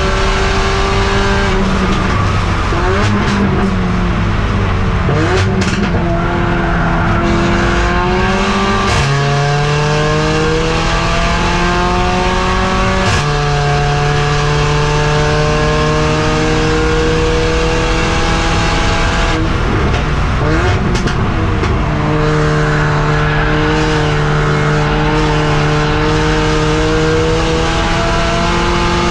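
Mercedes-AMG CLA45 race car's turbocharged four-cylinder engine heard from inside the cabin, working hard. Early on the revs fall and waver under braking. The car then accelerates through the gears, with the pitch climbing and dropping sharply at each of three upshifts, and near the end the revs hold nearly steady.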